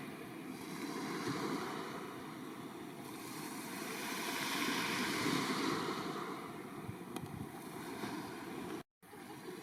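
Black Sea surf washing on the shore, a steady rush that swells louder about halfway through as a wave breaks, with wind on the microphone. The sound drops out briefly near the end.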